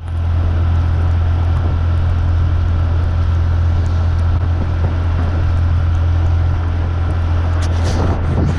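Bajaj Boxer 150's single-cylinder four-stroke engine running steadily with a constant low hum, and a short rush of higher noise near the end.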